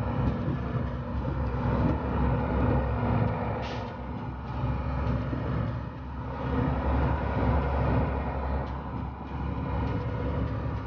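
Motor vehicle driving on a wet dirt road, heard from inside the cab: a steady low engine rumble with tyre and road noise.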